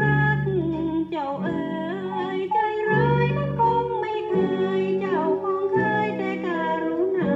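A woman singing a Thai popular song with instrumental accompaniment, played from a vinyl LP record; her held notes waver and glide between phrases.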